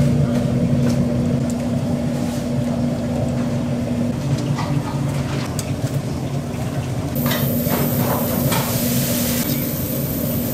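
Steady mechanical motor hum, with scattered light clicks and clatter over it. A faint high whine and a short hiss join about two-thirds of the way in.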